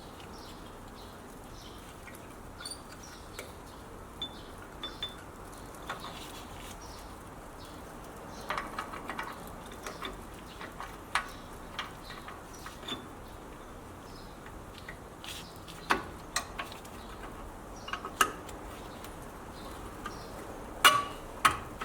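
Scattered light metallic clicks and clinks from the parking brake shoe hardware, the bottom return spring and star-wheel adjuster, as it is being fitted by hand, with a small cluster of clicks a third of the way in and a few sharper knocks near the end.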